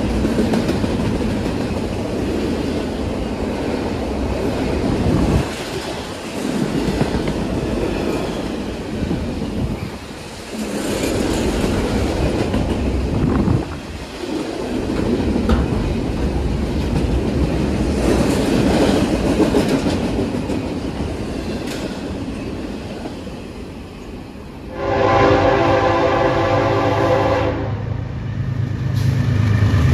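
A double-stack container freight train rolling past close by: a loud rumble and wheel clatter that swells and dips as the cars go by. About 25 seconds in, it gives way to an approaching BNSF freight's diesel locomotives sounding their air horn, one long blast of nearly three seconds, then another blast starting near the end.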